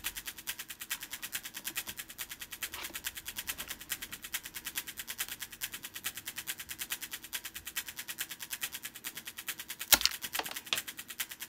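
Rapid, even ticking, then a sharp snap about ten seconds in as a glued plastic hook tears free of a polypropylene basket under the pull of a hanging scale, followed by a few lighter knocks: the adhesive bond has failed.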